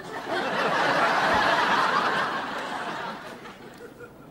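Sitcom studio audience laughing at a punchline, swelling quickly and then fading away over about three seconds.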